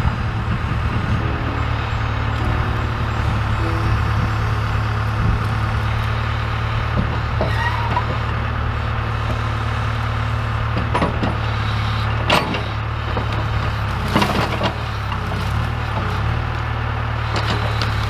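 John Deere backhoe's diesel engine running steadily while the rear bucket digs into a brushy bank, with several sharp cracks in the second half as branches snap.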